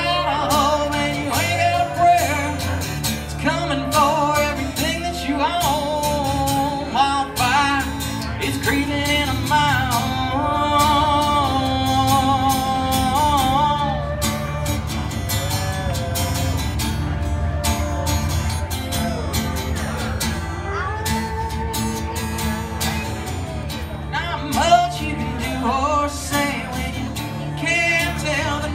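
Live country song on acoustic guitar and pedal steel guitar: steady strummed chords under sliding, wavering steel notes.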